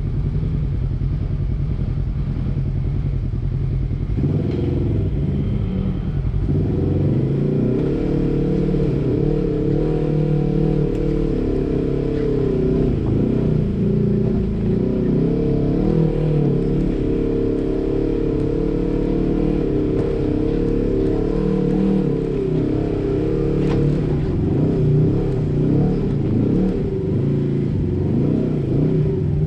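Polaris RZR side-by-side engine running at crawling speed and revving up and down as it climbs a rough, rocky trail. The sound changes a few seconds in, then carries on with the pitch rising and falling with the throttle.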